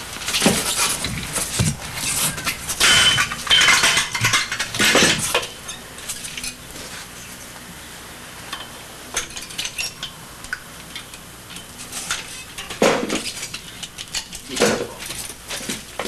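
Metal-on-metal clicks, clinks and scrapes from a modified car jack being fitted and cranked inside a steel bicycle U-lock. They are busy through the first five or so seconds, then come again in two short clusters near the end.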